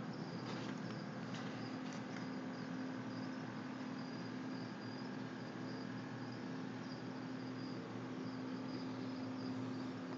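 Crickets chirping steadily and rapidly, over a constant low electric hum from the aquarium's filter pump.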